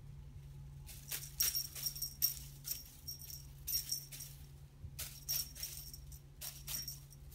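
Cat wand toy's metallic tinsel streamers and ball chain rattling and jingling in quick irregular bursts as the toy is swung and a kitten bats at it, starting about a second in. A steady low hum runs underneath.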